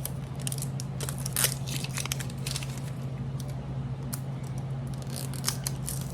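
Plastic blind-pack packaging being torn open by hand: irregular tearing, crinkling and crackling snaps throughout.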